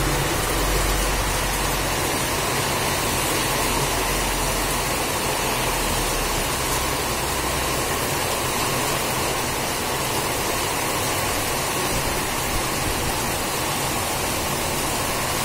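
Heavy rain pouring in a steady, even hiss, driven by strong wind. A low rumble underneath fades out about eight seconds in.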